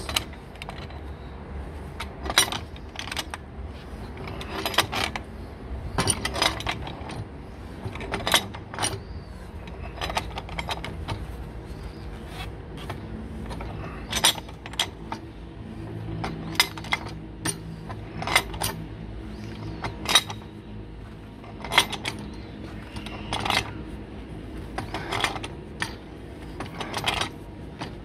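Steel pipe wrench tightening a threaded pipe fitting onto a gas solenoid valve. It makes a string of sharp metallic clicks and clinks, about one every second or two, as the wrench jaws bite, turn and are reset on the fitting.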